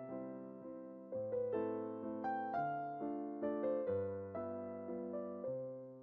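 Background piano music: a melody of struck notes, each fading after it is played.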